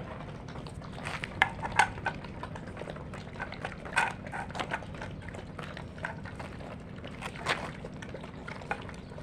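Dogs eating their food: irregular wet smacks and clicks of chewing and lapping, a few louder ones about a second and a half in, at four seconds and at seven and a half seconds, over a steady low hum.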